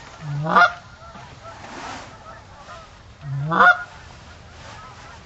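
Two loud goose honks about three seconds apart, each a low note that breaks sharply upward into a high honk, with faint scattered honking in between.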